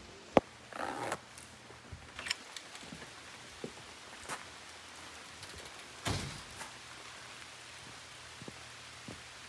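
A door knocks shut about half a second in, then scattered footsteps and small knocks on a wooden boardwalk.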